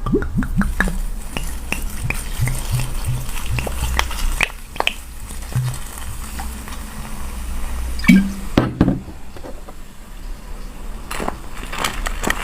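Hard ice being bitten and crunched close to the microphone, a run of sharp cracks and crackling. The crunching is heaviest a little past the middle and again near the end.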